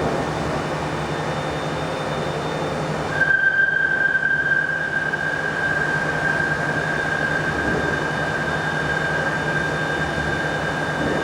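Workshop machinery running with a steady low hum; about three seconds in a steady high-pitched whine starts and holds.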